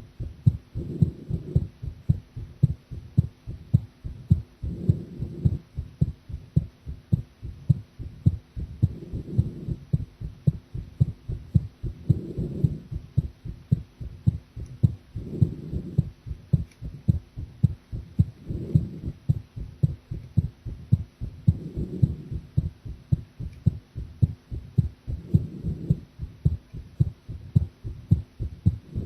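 A human heartbeat, picked up close at the chest, beating steadily as a quick run of low thuds. A softer swell rises and falls about every three and a half seconds.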